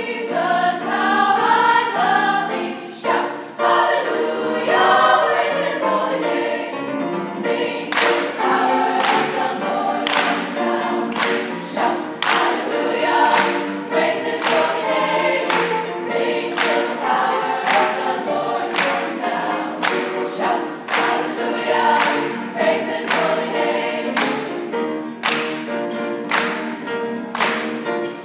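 Girls' choir singing a gospel-style song in full voice. From about eight seconds in, sharp hits keep a steady beat under the singing.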